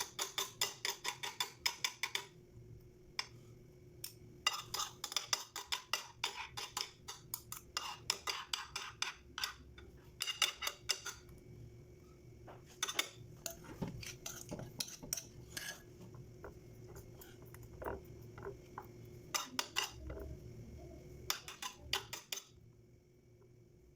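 Utensil clinking against a dish in quick runs of sharp taps, several a second, broken by short pauses.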